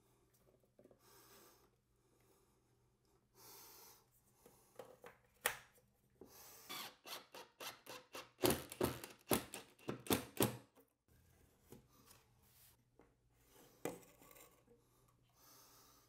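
A run of short, sharp clicks, scrapes and rasps as a metal handheld-shower slide bar is handled and screwed to the tiled wall with a cordless drill-driver. They begin a few seconds in, come thickest just past the middle, and then thin out.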